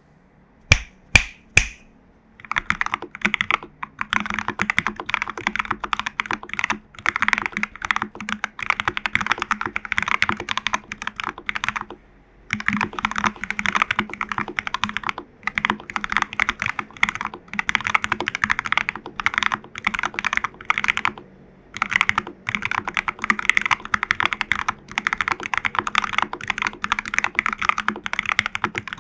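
Typing on a 40% mechanical keyboard in a plastic TU40 case with foam and tape mod, fitted with lubed Jelly Black linear switches and Owlab stabilizers. Three single sharp key strikes open it, then fast runs of keystrokes broken by short pauses.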